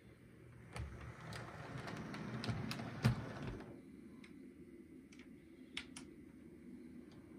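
On30 model steam locomotive running along layout track: a low running rumble with sharp clicks, as of wheels over rail joints and a turnout. A noisy swell builds over the first few seconds, peaks with a loud click about three seconds in, and drops away soon after.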